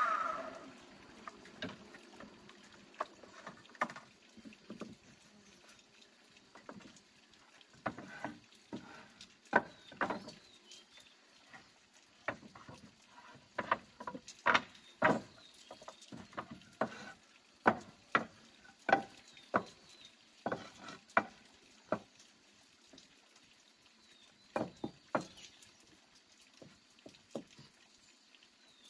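Wooden boards knocking and clattering as they are handled, set down and stacked on a wooden plank floor, in irregular clusters of sharp knocks with short gaps between.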